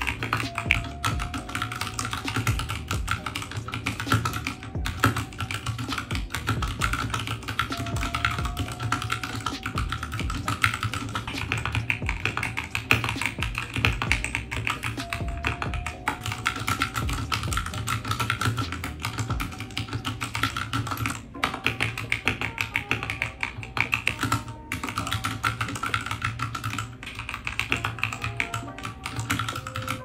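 Continuous fast typing on a Royal Kludge RK84 mechanical keyboard with RK red linear switches, modded with clipped stabilizers, tape and foam: a dense run of keystrokes, with background music underneath.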